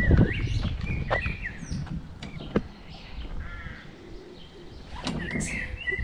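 Birds calling outdoors: a run of short, high chirps and curving calls, some close together. A low rumble sits under them in the first second or so and again near the end.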